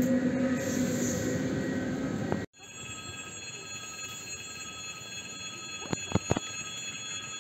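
An Ivolga (EG2Tv) electric train humming steadily with a low pitched drone. It cuts off abruptly and gives way to a level-crossing warning signal sounding steady high tones, with a few sharp knocks about six seconds in.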